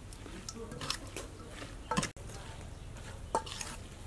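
Chopped vegetables and fish paste being mixed by hand in a stainless-steel bowl: soft wet squishing and rustling, with two sharp clinks against the metal bowl about two seconds in and a second and a half later.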